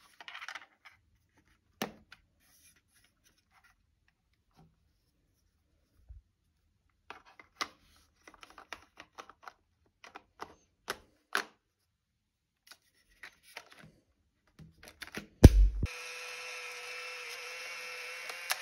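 Fujifilm Instax Mini 11 instant camera being loaded: scattered light plastic clicks and taps as the film pack is fitted and the back is shut. About fifteen seconds in comes a sharp click, then the camera's motor whirs steadily for about three seconds as it ejects the black film cover.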